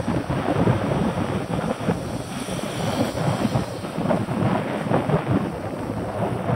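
Wind buffeting the microphone of a camera on a moving bicycle: a loud, uneven rumble.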